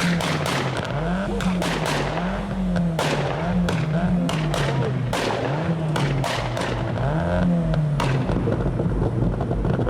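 A tuned car's engine revved in repeated short blips, about five or six times, with many sharp cracks and bangs from the exhaust as the revs fall: exhaust pops and bangs on the overrun.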